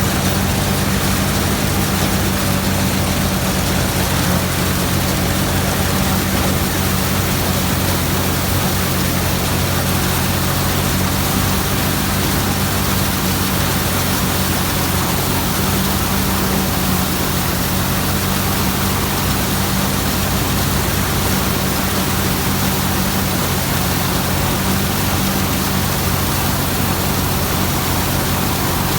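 Combine harvester running steadily while cutting wheat: a constant engine drone under the broad rushing noise of the machine at work.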